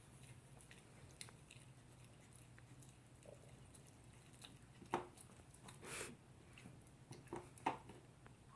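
Toy poodle eating its dinner: faint chewing with a few short crunches and clicks, the loudest about five and six seconds in.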